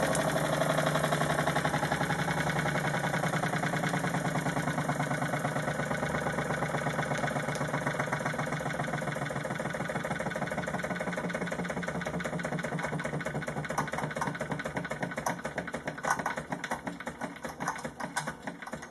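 Wilesco D16 toy steam engine running on its remaining steam with the burner turned off: a fast, even mechanical chuffing that slowly fades as the boiler pressure drops. Near the end it breaks into sparser, irregular clicks.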